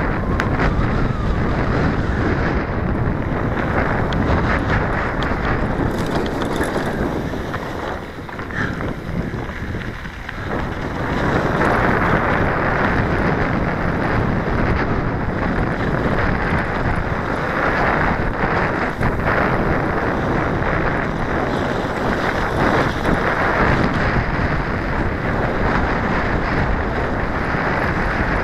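Wind buffeting the microphone of an action camera on a moving mountain bike, mixed with rattling and tyre noise from the full-suspension bike over a dirt trail. It eases for a couple of seconds about eight seconds in, then picks up again.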